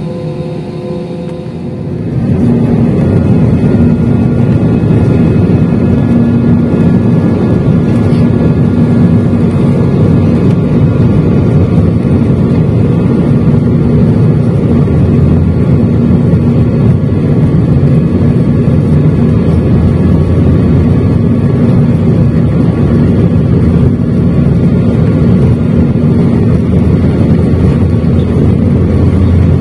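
Airbus A320 jet engines and rushing air heard inside the cabin as the plane rolls along the runway. The noise jumps up sharply about two seconds in, then stays loud and steady with a steady hum under it.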